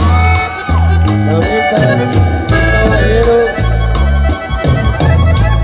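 Live norteño band playing an instrumental passage: the accordion carries the melody over a pulsing bass line, a guitar and a steady drum beat.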